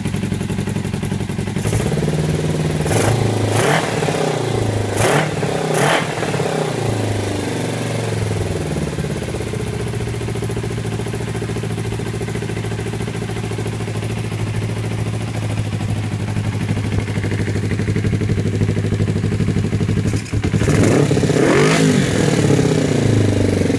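Freshly rebuilt Kawasaki GPX250 parallel-twin motorcycle engine running in a home-built buggy on its second start after the rebuild. A few seconds in it is revved in several quick blips, then it idles steadily, and it is revved again near the end.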